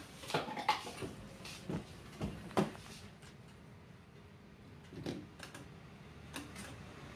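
Scattered clunks and clicks from a claw machine being played, loudest about two and a half seconds in, with a few fainter ones near the end.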